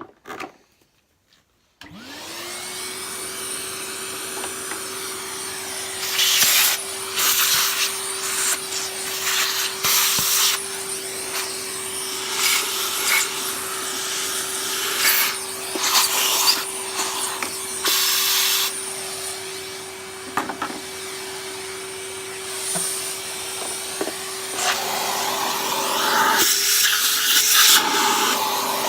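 A vacuum cleaner motor starts up about two seconds in, quickly rising to speed, then runs at a steady pitch while its nozzle sucks dust and debris. The rush of air swells and fades again and again as the nozzle is moved around.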